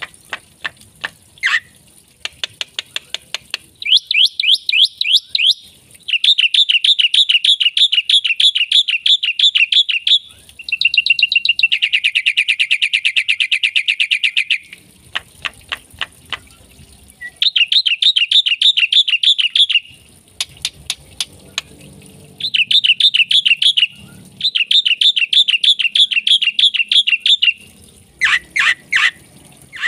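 Black-winged starling (jalak putih) singing a varied, full song: sharp clicking notes at first, then repeated bouts of fast, rattling trills of rapidly repeated notes, each bout lasting a few seconds with short pauses between.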